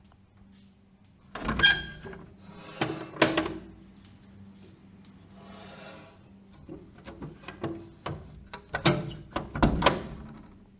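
A window being opened and closed: a series of knocks and thuds from the frame, with a softer sliding rub about five to six seconds in and lighter clicks after it.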